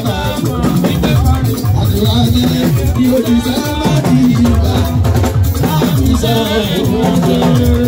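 Fuji music playing loudly: dense, busy percussion with a steady rattle over it, and bending melodic lines above.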